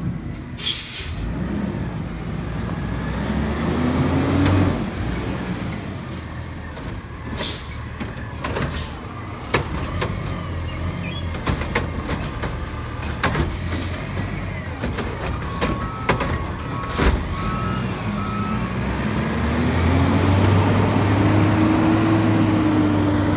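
Heil front-loader garbage truck's diesel engine running and revving as its hydraulic arm lifts and tips a green yard-waste cart, with several sharp clanks of the cart and a short beeping alarm. The engine revs up again near the end as the truck pulls away.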